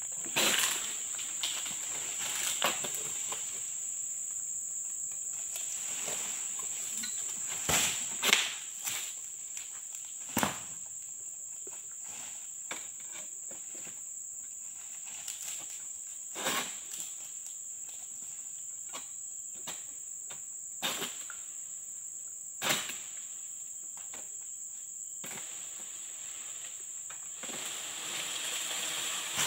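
A steady high-pitched insect drone runs throughout. Over it come scattered sharp knocks and snaps from a long-pole harvesting sickle (egrek) working at a tall oil palm's fruit stalks and fronds, the loudest about eight and ten seconds in, and a brief rustling near the end.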